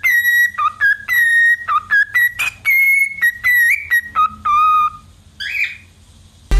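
Cockatiel whistling a tune: a run of clear whistled notes, some held and some short chirps, that stops about five seconds in, followed by one brief rising note.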